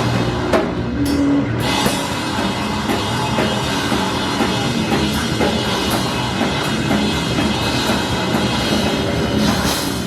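Live rock band playing, with the drum kit to the fore.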